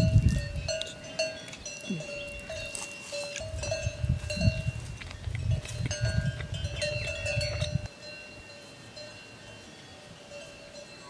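Livestock bells clanking and ringing over and over, with a low rumble that comes and goes, strongest from about three to eight seconds in.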